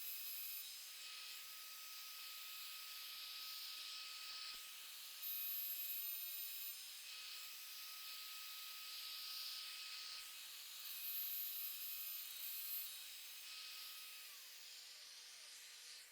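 Plunge router running while cutting mortises in walnut legs: a steady high whine with hiss that swells louder during a couple of passes, then the motor winds down near the end, its whine falling in pitch.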